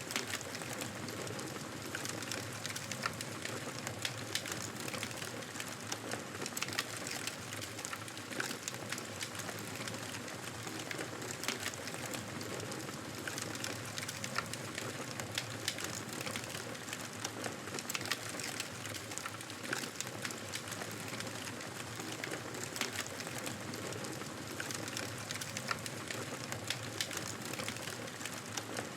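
Wood fire crackling, with frequent small pops and snaps scattered irregularly over a steady hiss.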